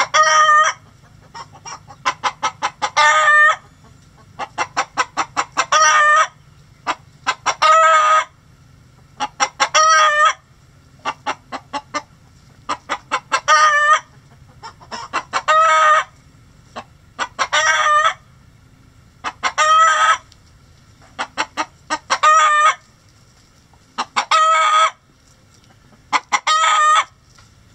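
A chicken hen cackling over and over: a run of quick clucks building into a long drawn-out squawk, repeated about every two seconds.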